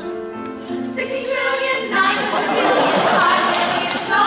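A group of women singing together in harmony, holding sustained chords that swell louder about two seconds in.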